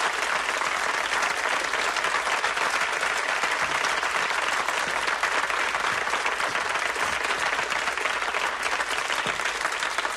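Audience applauding steadily, welcoming a performer onto the stage.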